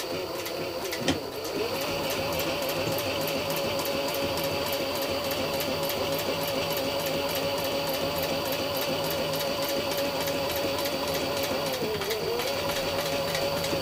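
Juki industrial sewing machine stitching through leather, starting up a second or two in and then running at a steady speed with an even, rapid needle rhythm. It slows briefly near the end and picks up again.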